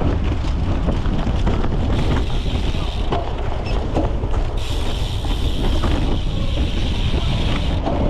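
Wind buffeting the microphone and rattling from a cyclocross bike ridden over rough ground, picked up by a camera mounted under the saddle. A steady high hiss joins in for about three seconds in the middle.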